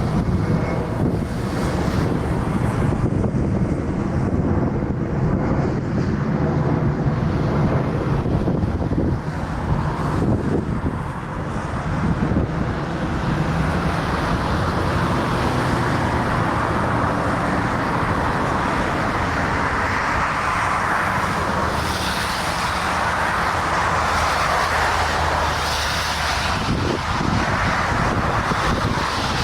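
Airbus A330 landing on a wet runway: steady jet engine hum under a rushing of air and spray, which grows louder and hissier from about twenty seconds in.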